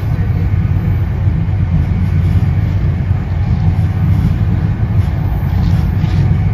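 Steady low rumble of an NJ Transit Comet II/IV passenger coach running at speed on the Northeast Corridor, heard from inside the car: wheels on the rails and the coach body carrying the running noise.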